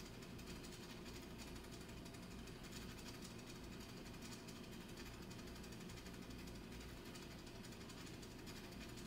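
Faint, steady low hum of an aquarium pump running.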